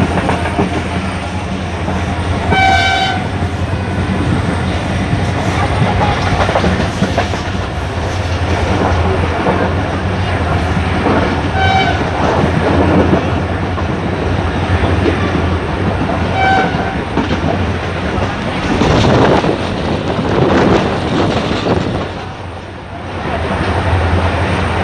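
Passenger train running at speed, heard from inside a carriage at its window: a steady rumble and rattle of wheels on the rails. Three short horn blasts sound over the first two-thirds, the first a little longer than the other two.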